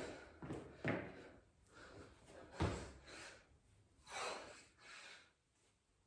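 Thuds of a person doing burpees on a stone floor: feet landing from the jump and hands and body dropping to the floor for the push-up pumps, with a few hard breaths between the knocks.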